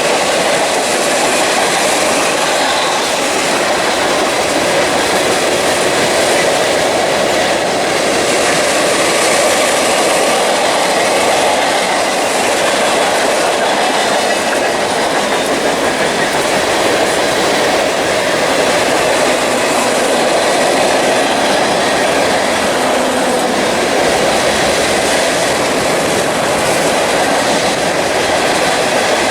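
Freight train cars rolling steadily past at close range, their steel wheels clacking over the rail joints.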